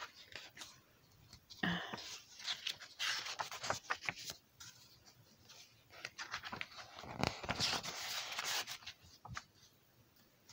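Pages of a comic annual being turned by hand: paper rustling and flapping in two spells, one from about two to four seconds in and another from about six to nine seconds in.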